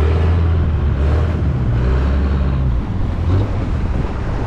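Longtail boat's inboard engine running steadily under way, its low drone shifting about three seconds in, with water and wind rushing past the hull.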